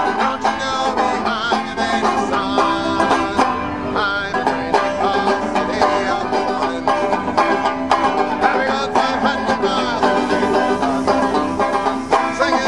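Bluegrass-style music with banjo picking.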